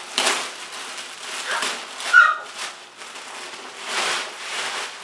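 Clear plastic wrapping crinkling and rustling in several bursts as it is pulled open, with one short high squeak about two seconds in.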